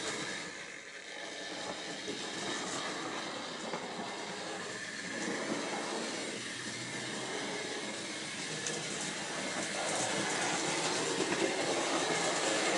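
Hornby model train running along the layout's track: a steady electric-motor whirr with light clicks from the wheels on the rails, getting a little louder about ten seconds in.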